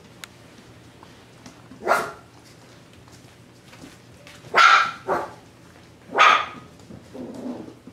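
Five-week-old mini Bernedoodle puppies giving short, sharp play barks while wrestling: one about two seconds in, a pair around the middle, and one more a second later. A quieter, lower sound follows near the end.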